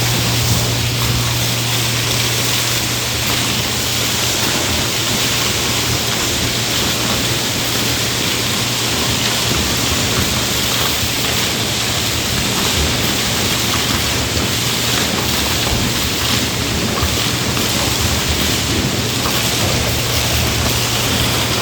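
Large vacuum cleaner running steadily: a loud, even rushing of air over a constant low motor hum.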